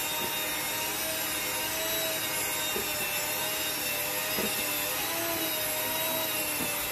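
Electric hand mixer running steadily, beating a thick frosting of icing sugar, butter and milk in a bowl. Its motor gives a continuous whine that wavers slightly in pitch.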